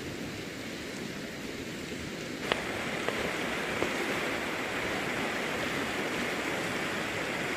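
Riverside stream flowing with a steady rush of water. A click comes about two and a half seconds in, after which the rush is louder and brighter.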